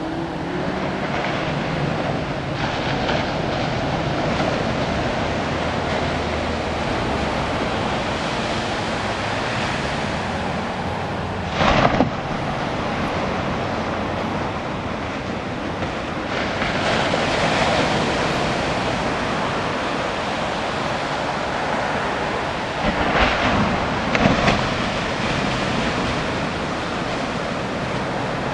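Ocean surf: small waves breaking and washing up the sand in a steady rush, swelling louder about seventeen seconds in. Wind hits the microphone in brief louder gusts about twelve seconds in and twice more later on.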